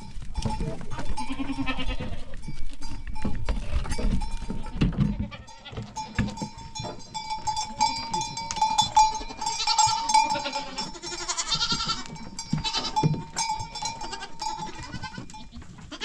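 Goats bleating, several calls in a row and busiest in the second half, with scattered knocks and scuffling.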